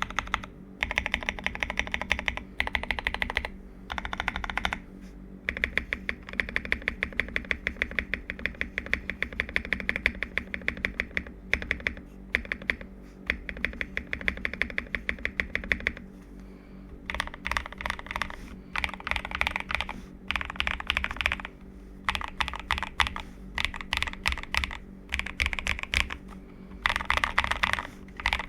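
Typing on a Tester68 custom mechanical keyboard with lubed KTT Strawberry linear switches, foam-filled case and plate, and XDA keycaps. Fast runs of keystrokes come in bursts separated by short pauses.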